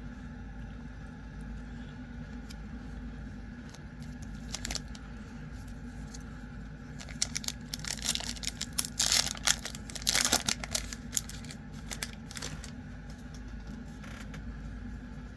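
Foil wrapper of a Disney Lorcana booster pack being torn open and crinkled: a brief crinkle, then a few seconds of loud tearing and crackling in the middle, over a steady low hum.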